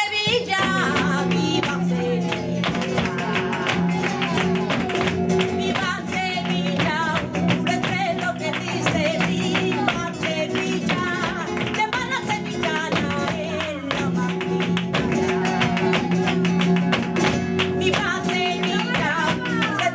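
Live sevillanas: flamenco guitar strumming and a woman singing, with sharp percussive strikes throughout, typical of dancers' shoes and palmas.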